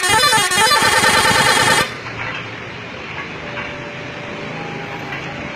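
SCH-721 vehicle horn sounding loudly with several shifting tones at once, cutting off abruptly about two seconds in. A steady, much quieter background of vehicle noise follows.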